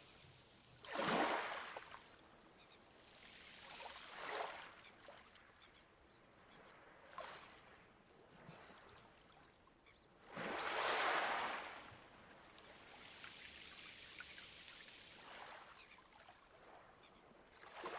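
Light waves washing onto a pebble beach: small surges every few seconds, each a brief rush of water through stones that fades away, the loudest about a second in and around eleven seconds in.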